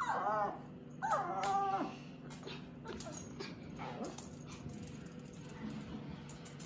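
A dog making strange whining vocal noises: a short cry that rises and falls at the start, then a longer, steadier one about a second in, followed by only faint small sounds.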